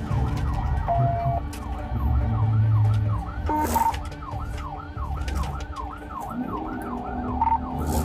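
Police siren yelping, about three rising-and-falling sweeps a second, over the low rumble of a vehicle driving at speed.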